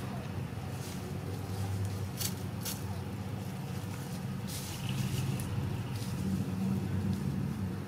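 A steady low rumble like a distant motor, with a couple of brief rustles of dry leaves about two seconds in as the chickens scratch.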